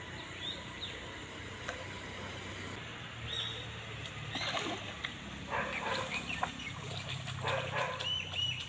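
A dog barking a few times in short bursts over the second half, with birds whistling short calls, one held briefly near the end.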